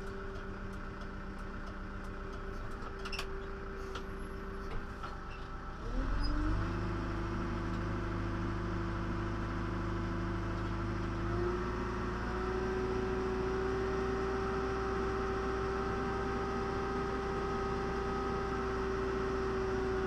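John Deere 310SG backhoe's diesel engine running, heard from inside the cab. About six seconds in, its note drops and it gets louder, with a deeper low end. A little after eleven seconds the note rises slightly and runs steady again.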